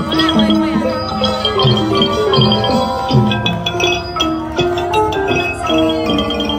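Traditional Thai dance music: a xylophone-like mallet melody in quick stepping notes over a steady pattern of short, high metallic strikes.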